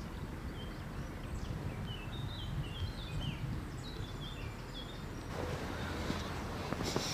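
Rural outdoor ambience: a steady low rumble, with a small bird singing a quick series of short high chirps for the first few seconds. A few faint clicks follow near the end.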